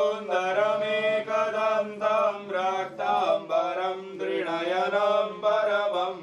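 A Hindu priest chanting Sanskrit puja mantras in a melodic, sung voice, with long held notes broken by short pauses, over a steady low drone.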